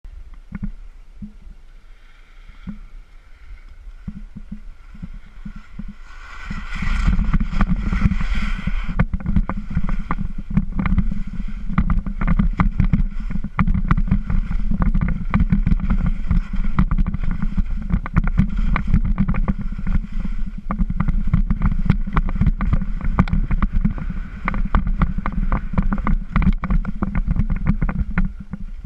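Wind buffeting the microphone with skis scraping and chattering over firm, rough snow during a ski descent. It is quieter for the first few seconds, then turns to a steady loud rumble with dense irregular clatter from about six seconds in, and a sharp hiss of skis carving or skidding from about seven to nine seconds.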